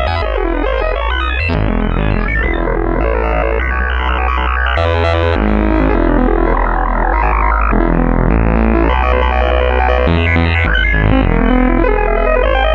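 Make Noise Spectraphon spectral oscillator in a Eurorack modular synthesizer, playing a dense electronic tone cluster. Its timbre and pitches jump in steps every second or two as it moves through a stored array of spectra, over a low note that also changes in steps.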